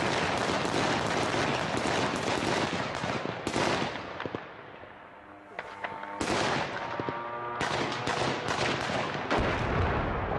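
Rapid automatic gunfire, shots packed close together in long bursts. It breaks off for a second or two about halfway through, then starts again.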